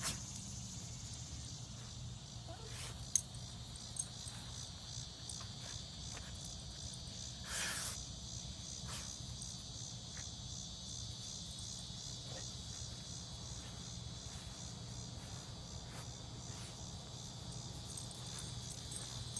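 Steady high-pitched chorus of insects buzzing outdoors, over a steady low hum. A few faint clicks and a short rustle come about eight seconds in.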